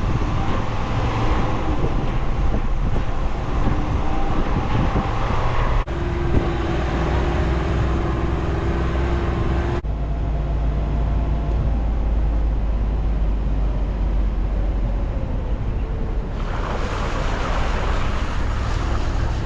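Pickup truck driving: a steady low engine rumble with road noise, changing abruptly a few times.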